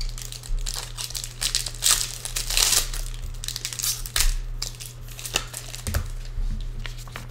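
Foil trading-card pack wrapper crinkling and tearing as it is opened by hand, with irregular crackles loudest about two to three seconds in.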